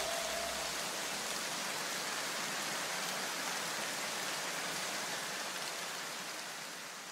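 An even hiss of noise, like a white-noise wash in electronic background music, left after the beat cuts out. It holds steady, then fades away near the end.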